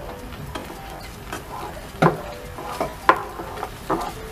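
A spatula stirring and scraping thick cooked semolina (rava) in a pan, with a few sharper knocks against the pan as the dough is worked dry.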